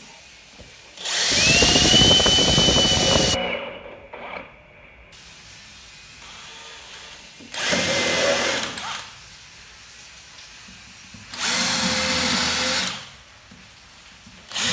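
DeWalt 20V XR cordless hammer drill, set to plain drilling rather than hammer mode, boring holes into pine boards in three bursts. The first lasts about two seconds and the next two a little over a second each, with the motor's whine climbing as it spins up each time. A fourth burst starts at the very end.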